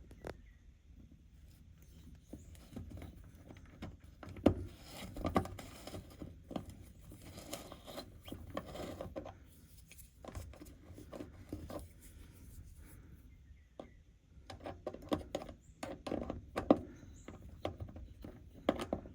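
Small hand tool clicking and scraping against the detented ring of a classic VW Beetle's dashboard headlight switch as it is worked loose, in irregular handling noises with sharper knocks about four seconds in and again near the end.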